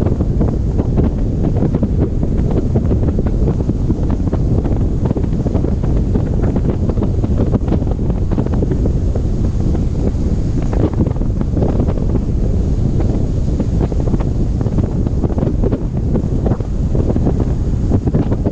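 Strong wind buffeting the microphone: a loud, steady low rumble with frequent small crackles.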